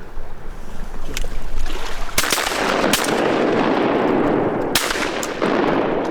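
Several shotgun shots spaced out over a few seconds, from hunters shooting at ducks, with a loud rushing wash of noise between the middle shots.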